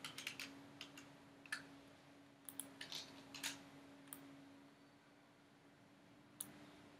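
Faint, scattered clicks of a computer mouse and keyboard: a cluster in the first second, a few more between about two and four seconds in, and one more near the end, over a faint steady hum.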